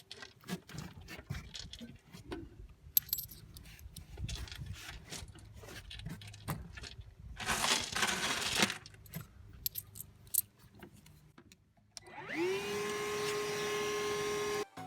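Small hard items clinking and rattling as leftover candy and coins are handled and sifted out of an emptied vending machine, with a louder rattling pour about halfway through. Near the end a steady whine rises in pitch, holds, then cuts off suddenly.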